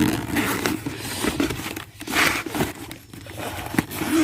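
Packaging being handled while a power-tool kit is unboxed: irregular crinkling and rustling with a few sharp knocks.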